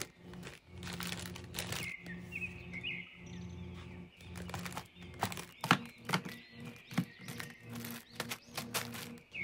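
Plastic snack packets rustling and crinkling, with irregular sharp clicks and taps against a plastic basket as they are packed in; the clicks come thickest and loudest in the second half. Under it, soft background music with short bird-like chirps.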